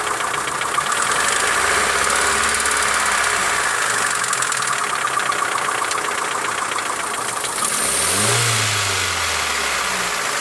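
Mitsubishi Lancer 9's 1.6-litre four-cylinder engine running with a steady, rapid knocking from the top end, which the owner takes to be worn hydraulic lifters (lash adjusters) in the middle cylinders. About eight seconds in, a brief rev rises and settles back to idle, with the knock still there.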